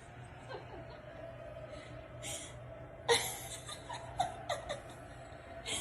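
A person laughing in a few short bursts, most of them in a cluster after the middle, over a faint steady hum.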